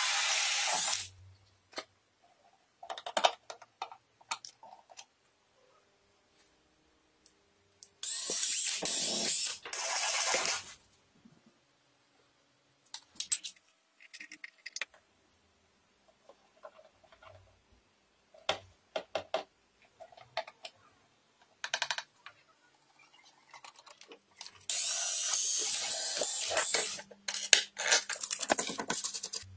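Three bursts of a power drill running, the first a hole saw cutting through the board, each lasting two to three seconds. Between them come scattered clicks and taps of small parts being handled and screwed in.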